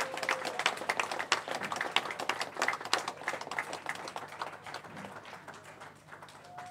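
Audience applauding with many hands clapping, the applause thinning out and fading away toward the end.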